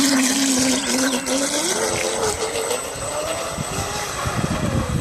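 Pro Boat Blackjack V3 radio-controlled boat's electric motor whining under throttle as the boat takes off across the water, its pitch rising over the first two seconds, with a hiss of spray. The sound grows fainter later as the boat runs away.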